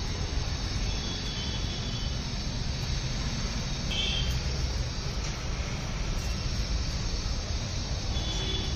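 Steady low rumble of street background noise, with a brief faint high tone about four seconds in.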